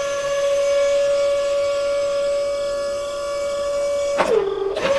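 Small electric gear motor of a toy crane's winch running with a steady high whine; about four seconds in it briefly drops lower in pitch, then comes back up.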